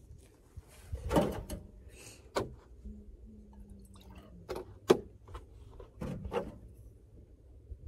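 A handful of knocks and clunks as camp gear is handled on a metal truck tailgate, including a metal mug set down. The sharpest knock comes about five seconds in.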